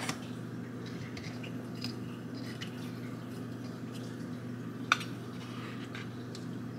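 A steady low hum, with light clicks and taps of a collagen powder canister being handled and opened. One sharper click comes about five seconds in.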